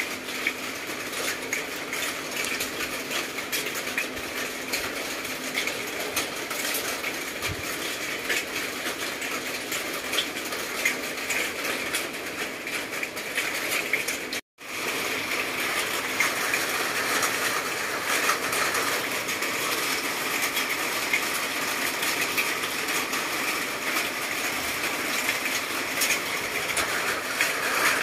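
Steady rain, a dense patter of drops without let-up, broken by a split-second gap about halfway through.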